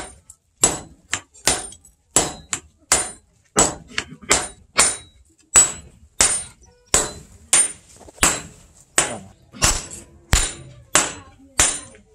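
Hand hammer forging a red-hot steel billet on a stake anvil: a steady rhythm of about one and a half blows a second, each blow with a bright metallic ring.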